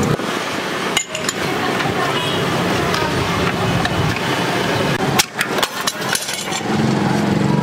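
Large hand shears cutting thin sheet steel. Sharp metallic clinks come about a second in and again around five to six seconds in as the blades close and the sheet and cut-off piece are handled.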